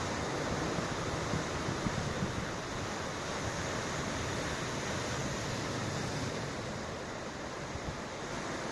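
Ocean waves washing onto the shore in a steady rush of surf, swelling and easing slightly, with wind across the microphone.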